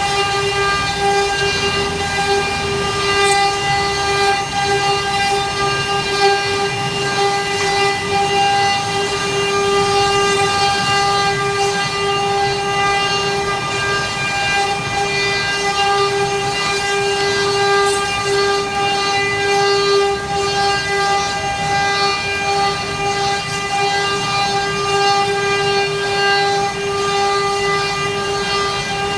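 CNC wood carving router running steadily, its spindle giving a constant whine with overtones over a noisy hiss.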